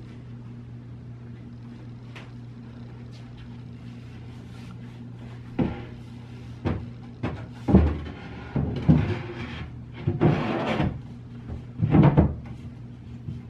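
Knocks, clunks and a scrape of a particleboard shelf being angled into a cabinet and set down onto its shelf pins, starting about five and a half seconds in. Before that only a steady low hum is heard.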